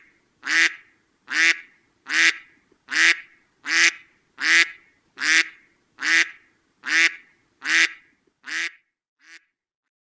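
A duck quacking over and over, about one quack every 0.8 seconds in an even rhythm. The last couple of quacks are fainter before it stops.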